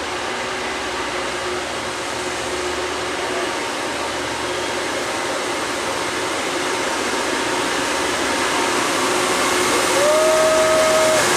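Loram rail grinder train approaching, a steady whooshing noise that slowly grows louder. Near the end a short tone glides up and holds for about a second.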